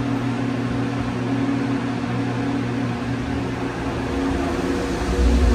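Steady mechanical hum with a constant low drone, like a fan or ventilation unit running; a deeper rumble swells near the end.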